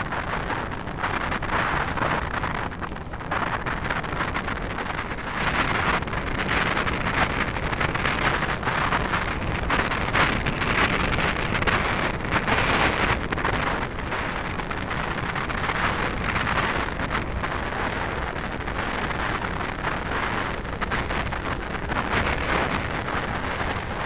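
Wind rushing over the microphone of a camera riding on a mountain bike, with the steady crunch and rattle of tyres rolling over a gravel track.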